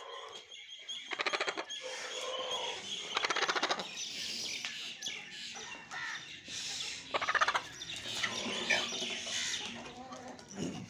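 Aseel chickens clucking and calling, with three short bursts of rapid pulsed clucks about a second, three seconds and seven seconds in, over lighter chirping calls.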